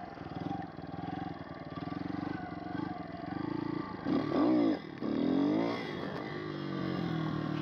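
Pit bike engine running as the bike rides along. About four seconds in it is revved hard twice in quick succession, its pitch sweeping up and down each time, to lift the front wheel for a wheelie. It then settles back to a steady run.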